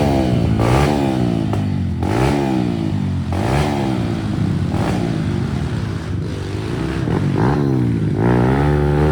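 Dirt bike engine revved again and again in short bursts, the pitch rising and falling every second or so, then held higher near the end, with some clatter.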